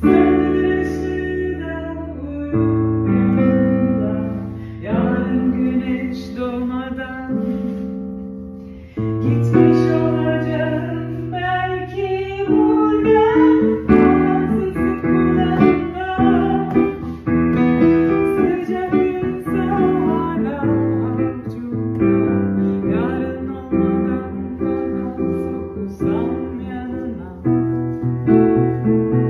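Piano playing chords while a woman sings a slow song.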